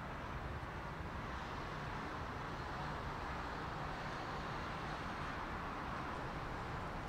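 A steady, even rumble and hiss with no distinct events.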